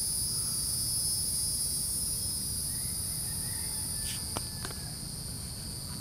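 Steady, high-pitched insect chorus in two unbroken bands over a low background rumble, with a few faint clicks about four seconds in.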